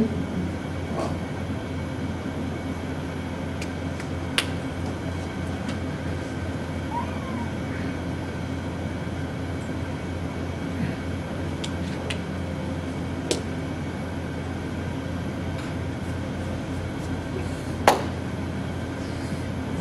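Steady low room hum, with about three sharp clicks scattered through it, the loudest near the end.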